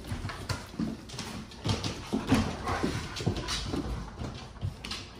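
A pit bull puppy and an adult pit bull play-fighting on a tile floor: short grunts and play growls in quick irregular bursts, with claws clicking and scrabbling on the tile.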